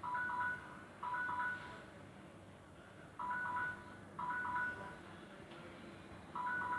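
Samsung Galaxy J5 ringtone: a short electronic phrase of a few bright notes, played twice about a second apart, the pair repeating about every three seconds.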